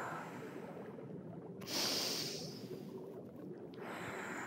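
A woman taking slow, deep breaths, each one an airy rush of air. The loudest comes about two seconds in, and a softer one near the end.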